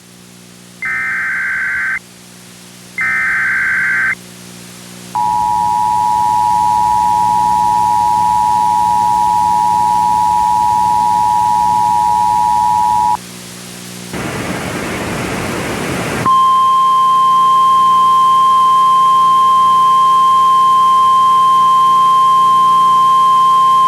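Emergency Alert System tones: the last two of three SAME header data bursts, each a harsh screech about a second long, then the two-tone EAS attention signal held steady for about eight seconds. After a couple of seconds of hiss, the steady 1050 Hz National Weather Service warning alarm tone sounds through to the end.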